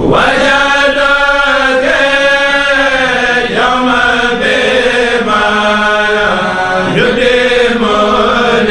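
A Senegalese Mouride kourel, a group of men chanting a religious poem (khassida) in unison, unaccompanied. The voices hold long notes that slide slowly in pitch, with a new phrase starting about every three and a half seconds.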